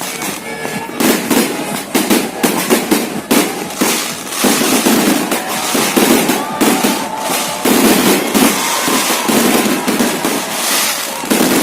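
Fireworks going off in a rapid, continuous barrage of sharp bangs and crackles.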